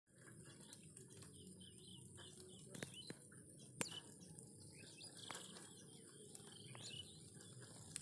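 Birds chirping and calling softly, short scattered chirps and brief glides, over a faint steady high hiss, with a few sharp clicks about three to four seconds in.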